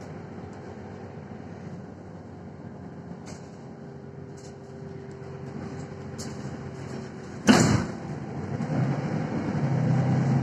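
Cabin sound of a Mercedes-Benz Citaro city bus under way: steady engine and road rumble with small rattles. About three-quarters of the way through there is one loud, sharp knock. After it the engine grows louder.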